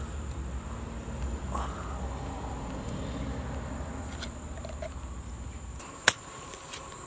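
A hoe chopping into damp garden soil: one sharp thud about six seconds in, over a low rumble, with a few lighter clicks after it.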